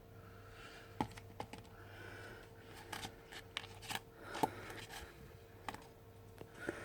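Scattered light clicks, taps and soft scraping from handling the frozen, paste-like homemade slime at close range, the sharpest taps about a second in and about four and a half seconds in, over a steady faint hum.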